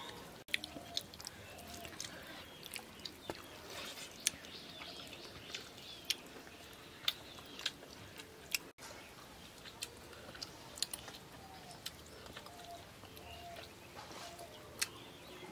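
Close-up sounds of people eating a meal by hand: scattered small clicks and chewing. Short bird chirps are heard in the background.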